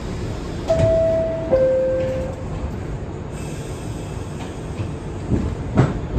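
New York subway R62 car's door-closing chime: two steady descending tones, a higher one about a second in and a lower one right after, over the steady rumble of the car. Two heavy knocks follow near the end, the second the loudest sound.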